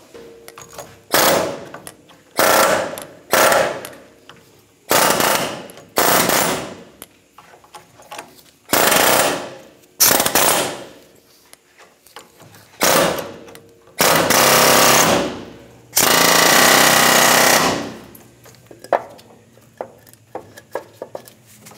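Pneumatic air chisel hammering in about ten short bursts against the rusted steel sleeve of a worn axle pivot bushing, the last two bursts longer. It is loosening the sleeve, which broke away from the inside of the badly worn bushing and stayed stuck in the axle eye.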